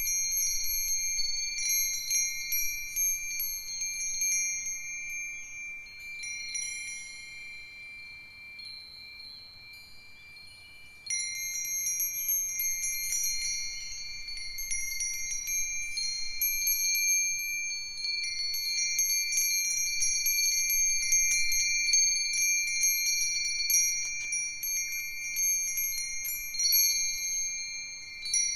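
A set of Japanese wind chimes (Myochin fire-chopstick chimes, Nambu cast-iron bells, a Nousaku chime and a sanukite stone chime) ringing in the breeze, with clear high tones overlapping and sustaining. The ringing thins to a few soft tones about a third of the way in, then picks up suddenly with a flurry of strikes about eleven seconds in.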